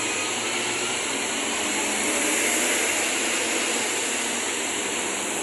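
Steady roadside traffic noise: an even hiss of engines and tyres, with no single vehicle standing out.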